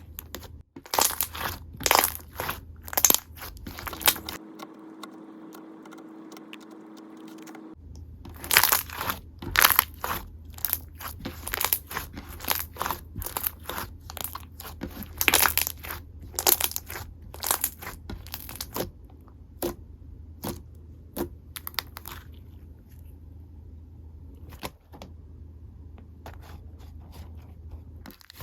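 Clear slime being squeezed and pressed by hand, making an irregular run of sharp clicks and pops that thins out near the end.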